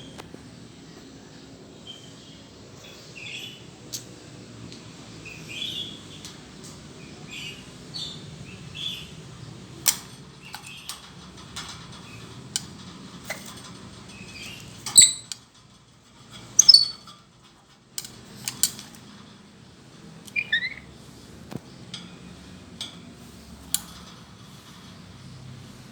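Pet lory (nuri parrot) giving short scattered chirps and squawks, a few of them loud, one falling in pitch. Sharp clicks come in between over a steady low hum.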